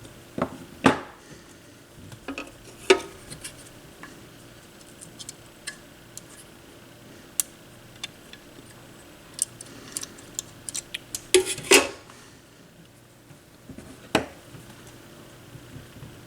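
Small metal hand tools and parts clicking and clinking against each other and the workbench while a capacitor's leads are bent and fitted to a circuit board. The knocks come irregularly, loudest about a second in, near three seconds, in a cluster around eleven to twelve seconds, and once near fourteen seconds.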